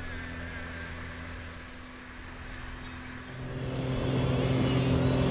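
Yamaha WaveRunner jet ski's engine running steadily under way, growing louder about three seconds in as a high whine joins it.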